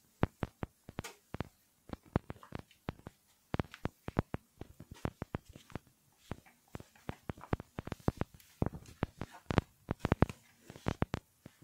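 A cat batting a ball around a tiled floor: quick, irregular clicks and taps of the ball and paws on the tiles, several a second, with a few louder knocks about two thirds of the way through.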